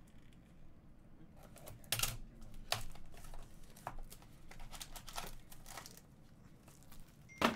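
Plastic shrink wrap crinkling and tearing as a cardboard trading-card box is slit and opened: a run of irregular crackles and clicks, with a sharp click near the end.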